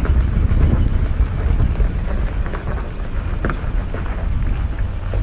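Four-wheel-drive vehicle running on a rocky off-road trail, a steady low rumble with wind buffeting the microphone and a few sharp clicks and knocks.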